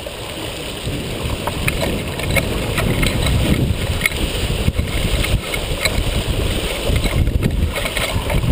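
Wind buffeting the microphone and water rushing along the hull of a Beneteau First 235 sailboat heeling in a strong breeze, growing louder after about a second.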